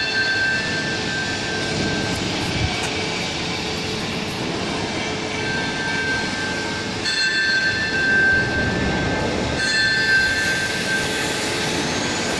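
Steady, loud industrial machinery noise with a high-pitched whine that comes and goes several times.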